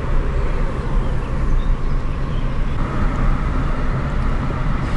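Car engine and tyre noise heard from inside the moving car: a steady low drone with road rumble.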